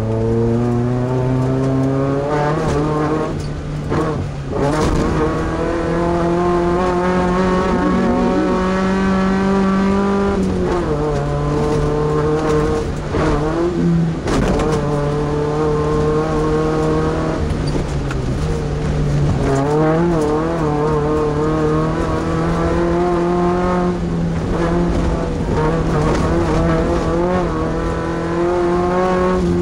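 Class 2 off-road race truck's engine running hard under racing load, its note climbing and dropping with throttle and gear changes, with brief lifts off the throttle near 4 and 14 seconds in.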